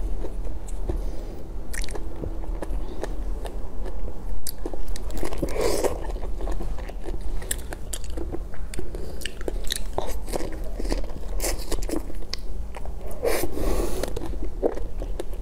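Close-miked biting and chewing of strawberries and jelly: wet crunches and mouth clicks, with louder bites about six seconds in and near the end.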